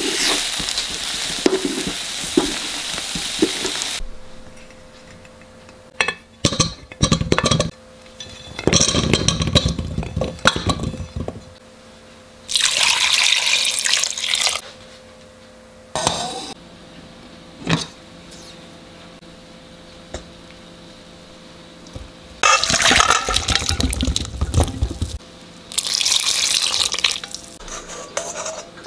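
For the first few seconds, a soy glaze sizzles around small potatoes in a pan. Then come water sounds: small potatoes rinsed and sloshed in water, water poured from a pot onto small potatoes in a stockpot for about two seconds, and more pouring and rinsing near the end, with a few clinks of pots.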